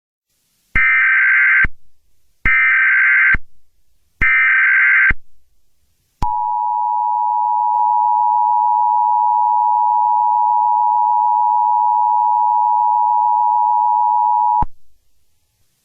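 Emergency Alert System header: three short bursts of buzzing digital data tones, then the two-tone attention signal held steady for about eight seconds before cutting off. This sequence marks the start of an emergency alert broadcast.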